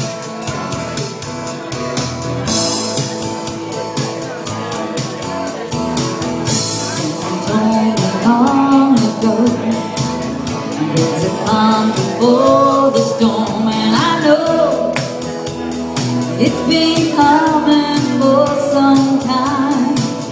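Live acoustic duo: an acoustic guitar strummed in a steady rhythm, with singing coming in about seven or eight seconds in.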